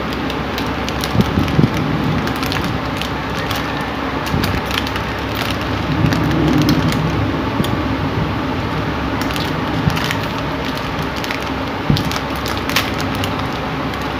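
A person chewing a crunchy snack close to the microphone: irregular sharp crunches and crackles.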